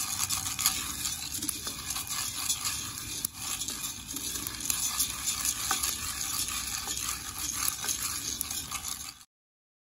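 Wooden spoon stirring coffee beans as they roast in an enamelled pot, the beans rattling and scraping against the pot in a steady stream of small clicks. Cuts off suddenly near the end.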